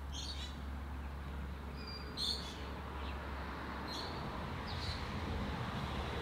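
Several short bird chirps spread over a few seconds, above a steady low hum.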